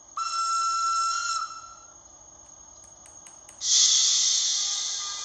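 Recorded train sounds from the Märklin RhB model locomotive's sound module: a single steady high whistle lasting about a second and a half, a few faint clicks, then a loud hiss starting about three and a half seconds in and slowly fading.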